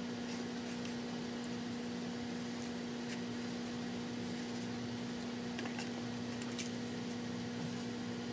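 A steady low hum fills the background, with faint light clicks and scrapes of a metal fork on a foam plate.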